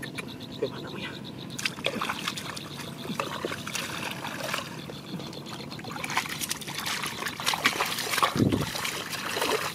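Hands groping and splashing through shallow muddy water and soft mud, feeling for fish: an irregular run of wet slaps and splashes that gets busier and louder about two-thirds of the way through, with one heavier splash near the end.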